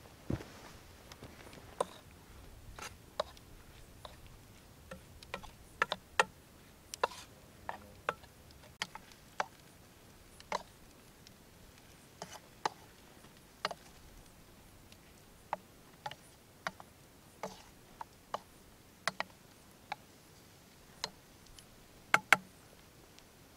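Wood crackling and snapping: sharp, irregular snaps about one or two a second, the loudest two close together near the end.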